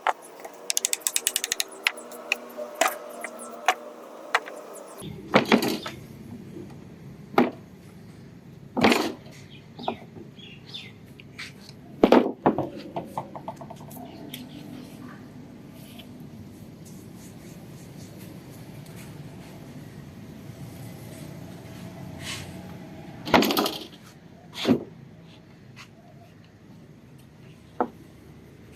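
Scattered knocks, taps and clicks of hand work on a wooden bench, with a quick rattling run of clicks in the first two seconds and a few louder knocks later on.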